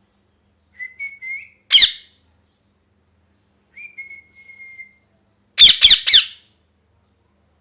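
Ringneck parrot calling: a short, soft whistle about a second in, then a loud harsh squawk, a longer soft whistle that drifts slightly down in pitch in the middle, and a quick run of three or four loud squawks near the end.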